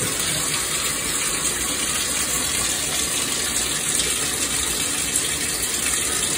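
Water running steadily into a bathtub, an even unbroken hiss.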